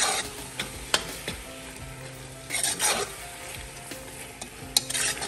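A spoon stirring a thick, wet pot of cooked-down waterleaf and meat in a large metal pot, with a few louder scrapes against the pot and steady sizzling under them as the powdered shrimp is mixed in.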